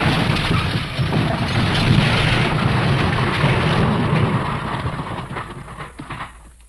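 A crashing, rumbling smash sound effect. It bursts in at full level and holds as a dense rumble for about five seconds, then dies away over the last second or two.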